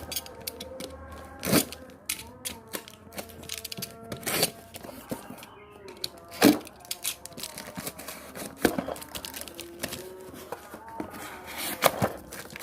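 A parcel's plastic packaging being torn open by hand: irregular tearing and crackling, with four louder sharp rips spread through.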